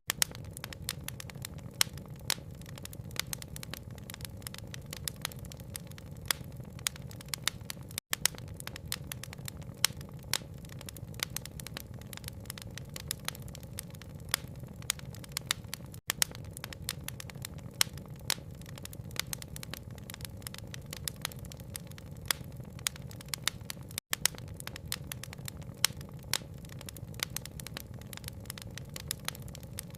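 Wood fire crackling, with many sharp pops over a steady low rush. The sound cuts out for an instant about every eight seconds, where the ambience loop restarts.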